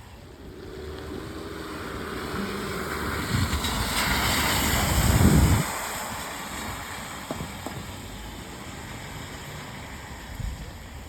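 A car driving past on a rain-soaked road, its tyres hissing through the water: the spray swells over the first few seconds, peaks about five seconds in and cuts off sharply, leaving the steady hiss of rain.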